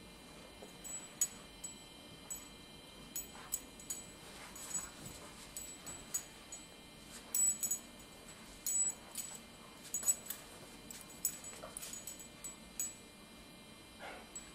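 Metal tags on a dog's collar jingling in many quick, irregular clinks as a dog moves about in play.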